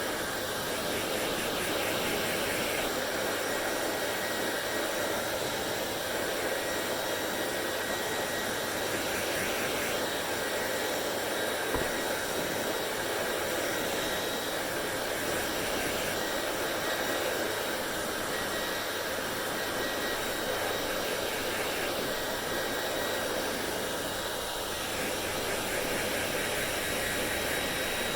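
Hair dryer running steadily: a continuous rush of blown air with a faint high whine, its hiss shifting in tone every few seconds.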